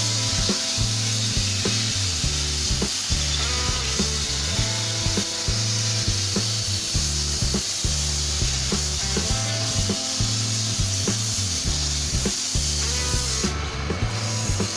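Background music with a steady bass line, over a steady hiss that stops near the end.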